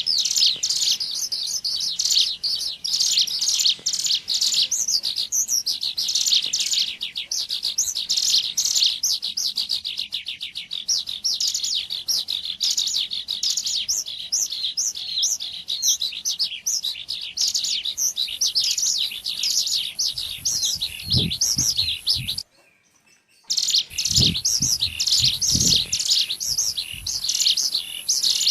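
Ciblek gunung calls used as a bird lure: a fast, dense stream of high chirps and trills. They cut out suddenly for about a second past the two-thirds mark, with a few low thumps around that break.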